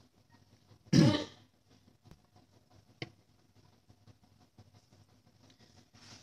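A man clearing his throat once, about a second in, then a single short click about two seconds later, over faint room tone.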